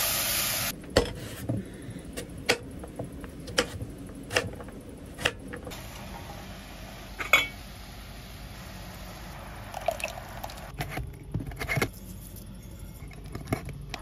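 A spoon stirring food in stainless steel pots, knocking and scraping against the metal in separate sharp clicks that come closer together near the end, with liquid sounds from the stirred curry. A short hiss at the very start cuts off suddenly.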